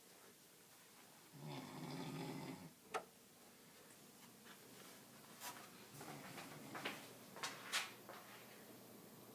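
One long fluttering snore about a second and a half in, followed by a sharp click and a few fainter clicks.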